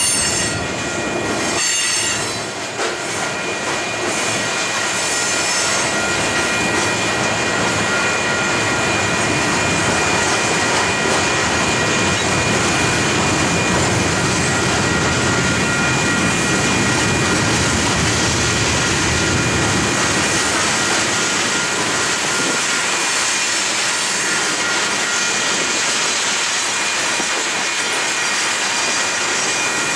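Freight train of tank cars and hoppers rolling past at steady speed, its wheels rumbling on the rails. A thin, high-pitched squeal from the wheels holds through much of the passing and is strongest in the first couple of seconds.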